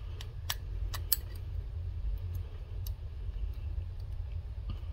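Small metal clicks of folding-knife parts (blade, pivot bushing and washers) being fitted together by hand: four sharp clicks in the first second or so, then a few faint ticks, over a steady low hum.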